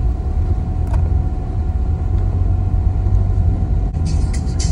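Car driving, a steady low rumble of engine and road noise, with a quick run of sharp clicks or rattles near the end.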